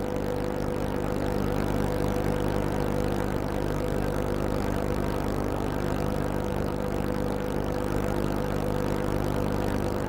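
A boat engine running steadily: an even, unchanging drone.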